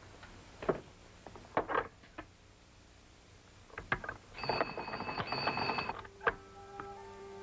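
A few light clicks and knocks, then a telephone bell rings for about a second and a half with a short break in the middle. Soft music comes in near the end.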